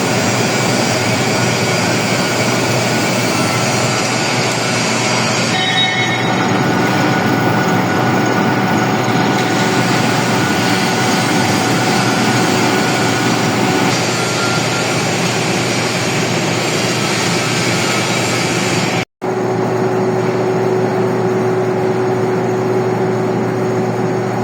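Metal lathe running while turning a steel stud bolt: a steady, loud machine noise with a few held tones, broken once by a short cut about three quarters of the way through, after which a steady hum continues.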